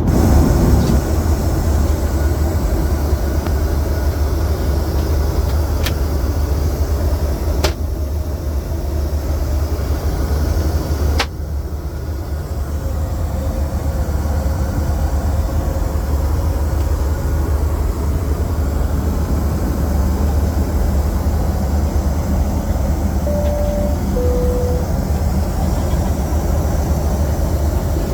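Steady rumble of a Boeing 737-800 cabin in flight, a deep even drone. A few sharp clicks in the first half are followed, about 23 seconds in, by a two-note high-low cabin chime.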